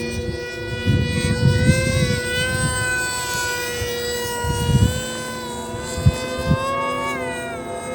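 Emax Eco II 2207 2400KV brushless motor spinning a 6x4 propeller on a small electric RC plane: a high whine that shifts in pitch with the throttle, dipping near the end. Wind buffets the microphone in gusts, with two short thumps about six seconds in.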